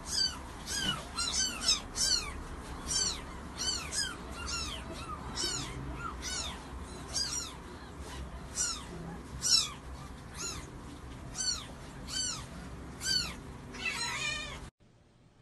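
A small animal's high-pitched cries: short calls, each rising and falling, repeated about twice a second. They cut off suddenly near the end.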